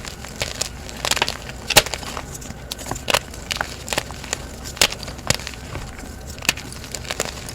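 Blocks of plain gym chalk being crushed: a string of irregular crunches and sharp snaps. The loudest come about two seconds in and just before five seconds.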